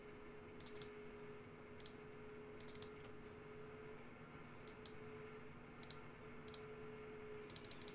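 Faint computer mouse clicks, several of them in quick pairs, coming every second or so, with a rapid run of clicks near the end, over a faint steady hum.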